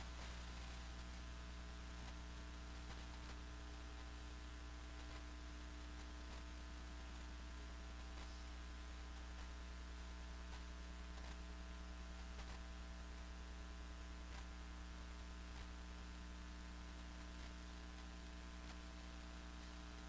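Steady electrical mains hum, a low buzz with a stack of overtones, with a few faint scattered clicks.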